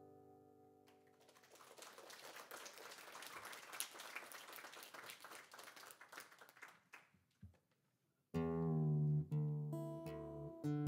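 An acoustic guitar's last chord fades out, then faint applause patters for several seconds. About eight seconds in, single acoustic guitar strings are plucked and let ring, their pitch shifting in small steps as the guitar is tuned between songs.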